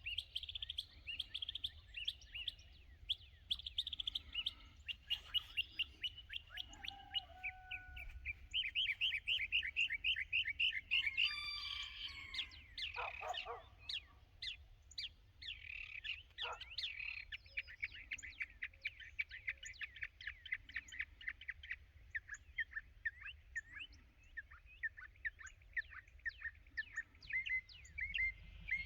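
Wild birds chirping and trilling: a dense run of quick, repeated chirps, with a few separate gliding calls about midway.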